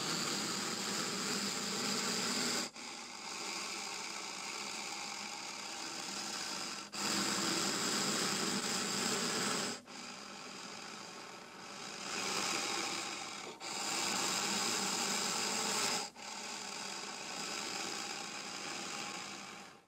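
Indian cobra hissing: long noisy hisses of three to four seconds each, one after another with brief breaks between them, alternating louder and softer.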